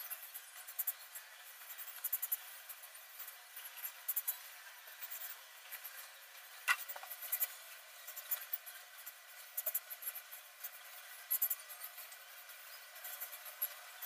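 Small scratching and clicking sounds from cockatiels on a perch: scattered bunches of short high ticks and rasps, with one sharper sound about halfway through.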